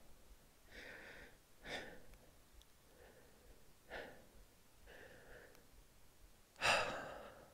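A person's breathing: several short, soft breaths, with a louder, longer one near the end.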